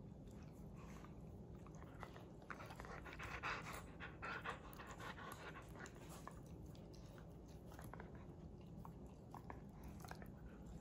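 Siberian husky and yellow Labrador puppy play-mouthing each other: soft wet mouthing, licking and panting sounds, loudest for a couple of seconds around the middle.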